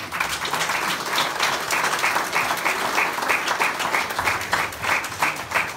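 Audience applauding, a dense patter of many hands clapping that starts at once and keeps up steadily.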